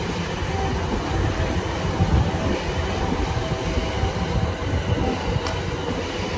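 E235 series 1000 electric multiple unit standing at a platform, its onboard equipment running with a steady low rumble.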